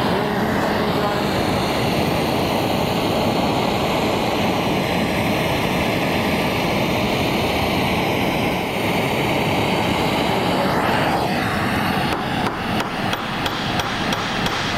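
Gas torch flame rushing steadily as it heats spring steel bar stock in a vise so it can be bent into a leaf spring. From about twelve seconds in comes a quick run of light hammer blows on the hot steel, about four a second.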